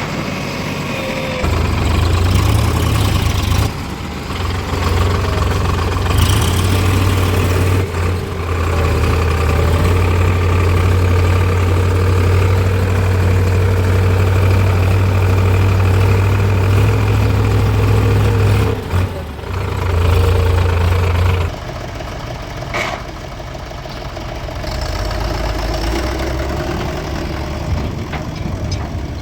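Heavy diesel machinery engines running, with a deep steady drone that eases off to a lower level about twenty seconds in.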